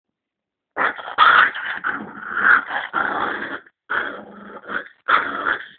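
Red-nose pit bull puppy growling in a string of bursts with short breaks while play-biting a person's hand.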